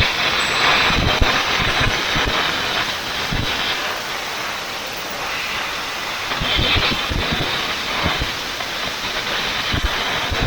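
Air carbon arc gouging: a loud, steady hiss of compressed air with an irregular crackle and popping from the arc as it cuts out old cracked welds.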